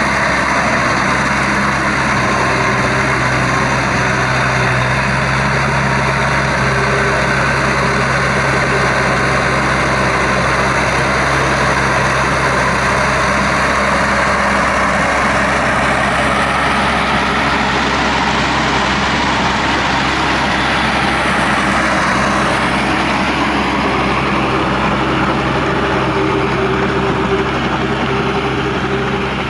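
Shibaura V52F tractor's four-cylinder diesel engine running steadily under load as it drives a rear rotary tiller through wet paddy soil.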